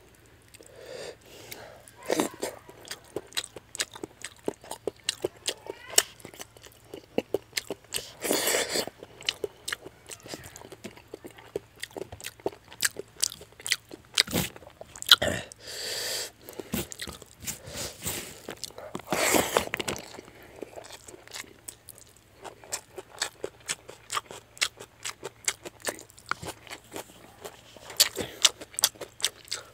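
Close-miked chewing and crunching of fish head curry and rice, with many irregular wet mouth clicks and smacks and a few longer, noisier mouth sounds in between.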